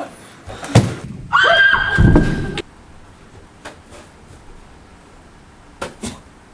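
A sharp knock, then a loud, shrill pitched cry lasting about a second and a half, followed by quiet with a few light knocks.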